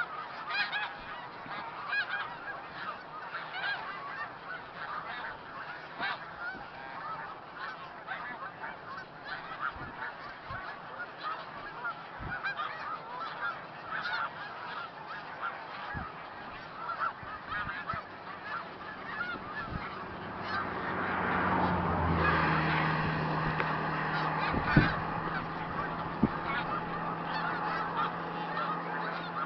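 A large flock of snow geese calling nonstop, a dense chorus of overlapping honks. About two-thirds of the way through, the calling swells louder and a low steady hum comes in, with a sharp knock shortly after.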